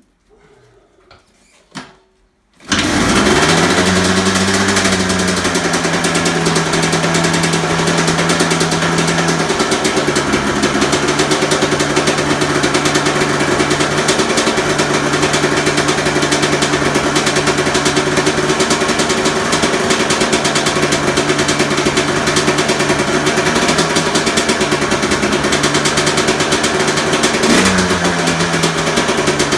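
2002 Honda CR250R single-cylinder two-stroke dirt bike engine, breathing through a Pro Circuit expansion chamber. It is kicked and catches about three seconds in, settles into a steady idle, and gets one short blip of the throttle near the end.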